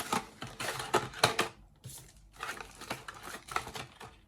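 Model-kit packaging being handled: an irregular run of rustles and clicks, the sharpest just over a second in, thinning out toward the end.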